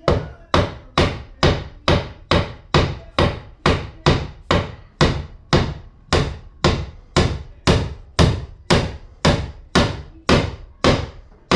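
Hammer driving nails into wood, with steady, evenly spaced strikes at about two a second.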